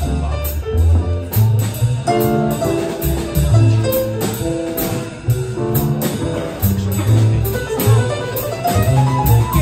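Live small-group jazz: a double bass plucking a walking line under piano chords, with drums keeping time on steady cymbal strokes.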